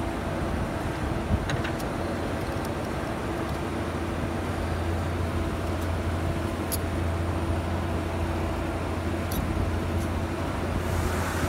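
Steady low machine hum in a workshop, with a few light metallic clicks as a band saw blade is handled and set in the copper clamps of a butt welding machine.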